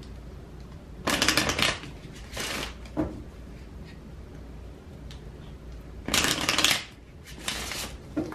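Oracle cards being shuffled by hand: short bursts of rapid card flicking in two pairs, the first about a second in and the second about six seconds in, with quiet pauses between.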